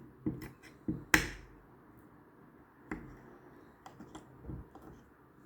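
A spoon knocking and scraping against a dish while egg yolk, butter and baking soda are mashed together: a few irregular clicks and taps, the loudest about a second in.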